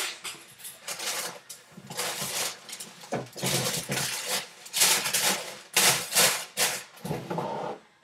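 Tissue paper rustling and crinkling as it is pulled out of a sneaker box, in a series of irregular bursts.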